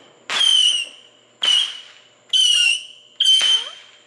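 Consumer fireworks firing whistling shots, about one a second. Each is a sharp pop followed by a short, high whistle that drops slightly in pitch, four times in all.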